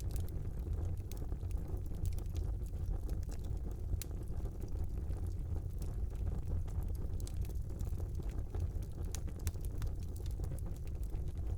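Wood fire burning in a fireplace: a steady low rumble of flames with frequent small, sharp crackles and pops scattered irregularly throughout.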